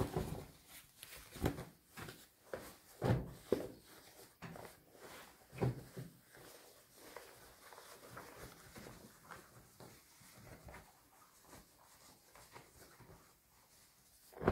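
Cotton denim jeans being handled, flipped over and laid flat on a surface. The fabric rustles, with several soft thumps in the first six seconds and quieter rustling after.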